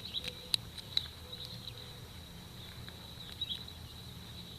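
Two sharp small clicks about half a second apart near the start, over a steady high-pitched background tone with faint chirps.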